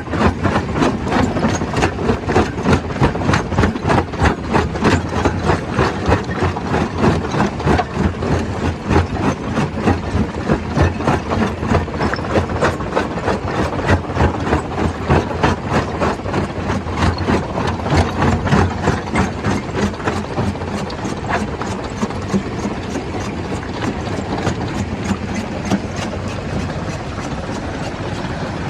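Stone crusher running: a loud mechanical din with a regular pulsing beat about twice a second, which gives way to a steadier rumble in the last third.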